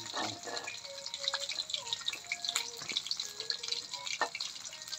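Battered chicken feet frying in hot oil in a steel wok: a steady dense sizzle and crackle with a few sharper pops.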